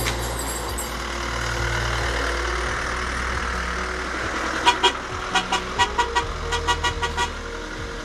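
A heavy truck rumbles past in the first few seconds over a running engine. Then, from a little past halfway, a vehicle horn toots in a quick series of about a dozen short beeps lasting about two and a half seconds.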